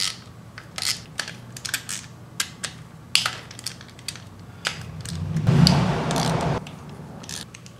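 Hand ratchet clicking as it backs out the 10 mm bolts holding the oil pump on a Subaru EJ25 engine: a string of sharp, irregular metal clicks, with a louder continuous stretch of about a second and a half past the middle.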